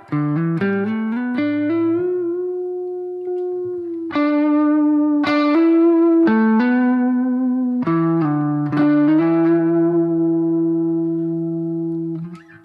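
Electric guitar played through a BOSS GT-1000 amp modeller and Two Notes Cab M: a quick run of single notes, then several chords struck and left to ring.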